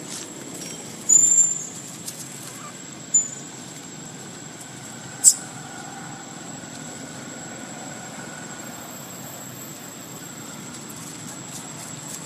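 A baby macaque giving a few short, high-pitched squeaks, the loudest about a second in and a smaller one about three seconds in, over steady background noise, with a sharp click about five seconds in.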